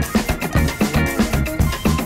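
Background music with a drum kit playing a steady, quick beat over bass.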